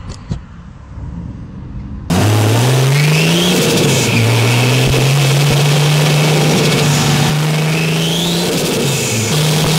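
Nissan Skyline R33's modified RB26 straight-six heard through a microphone in the engine bay. It pulls up through the revs, drops back at a gear change and then holds a steady drone, with a high turbo whine rising on the pulls and heavy wind rush over the microphone. The first two seconds are quieter, with a few sharp clicks.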